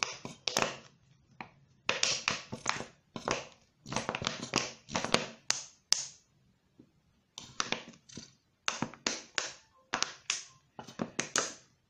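Small plastic toy baby bottle being squeezed, the liquid slime activator sputtering out in spurts with sharp clicking, in four spells separated by short pauses.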